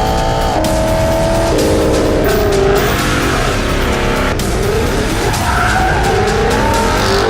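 Car tyres squealing in a burnout or drift, wavering and sliding in pitch over an engine, with loud background music.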